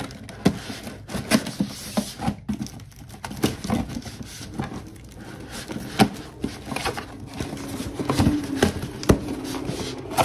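Clear packing tape peeled off a cardboard shipping box, then the cardboard flaps pulled open and handled: irregular crackling and scraping with many sharp clicks and taps.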